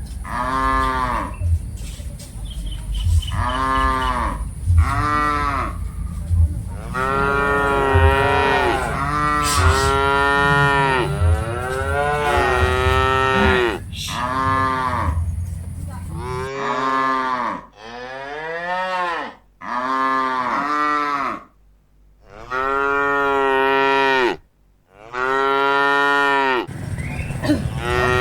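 A herd of cattle mooing again and again, long lowing calls that rise and fall, several overlapping at once. A low rumble runs under the calls for the first part and stops suddenly.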